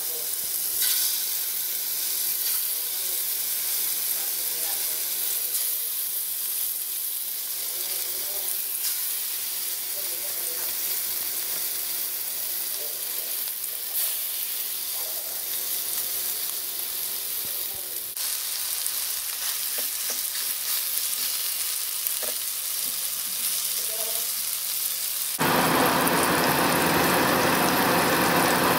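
Marinated chicken pieces shallow-frying in hot oil in a nonstick frying pan, with a steady sizzle. Near the end the sizzle jumps abruptly to a louder, fuller hiss with a low steady hum under it.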